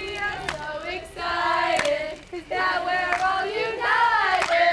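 A group of girls and young women singing together, holding and sliding between notes, with a few sharp claps along the way.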